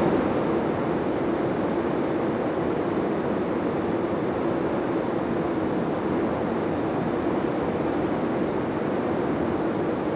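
Rotax engine and propeller of a Zenith STOL CH 701 light aircraft running steadily in cruise flight, mixed with a heavy rush of wind. A faint steady hum sits under the noise.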